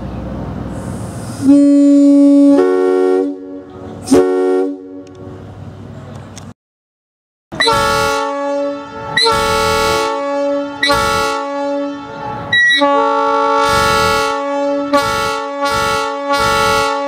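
Multi-chime locomotive air horn blown on compressed air in a series of blasts. A low note starts first and the higher chimes join it. After a brief break the full chord sounds in several long blasts, then a run of short toots near the end.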